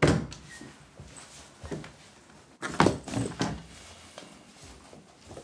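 Knocks and thuds of a door and a backpack being handled. A sudden knock comes at the start, and the loudest cluster of knocks and rustling comes about three seconds in.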